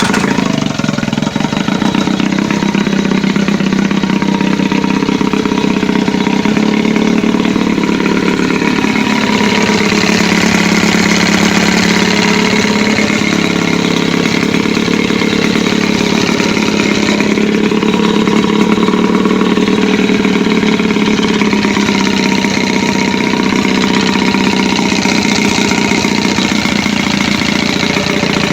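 A 15 hp Johnson two-stroke outboard motor catching at the very start, then running steadily at low speed, its pitch wavering slightly.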